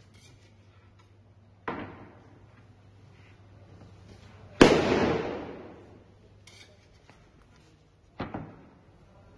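A 600x1200 mm cement board dropped flat onto a concrete floor, landing with a loud slap that rings on for more than a second, about halfway through. A lighter knock comes well before it, and a second, doubled knock comes near the end.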